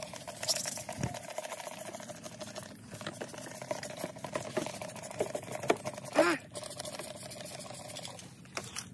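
Hand trigger spray bottle of spray wax spritzing onto engine-bay plastic covers, with a short hiss just after the start, over a steady hum and faint clicks. A brief pitched call rises and falls about six seconds in, the loudest sound here.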